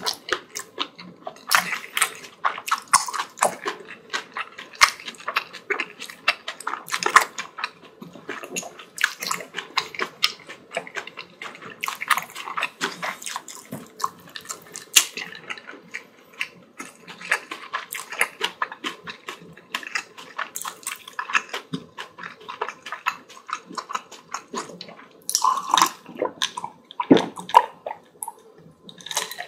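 Close-miked wet chewing and smacking of a mouthful of bibimbap: a dense, irregular run of small moist clicks.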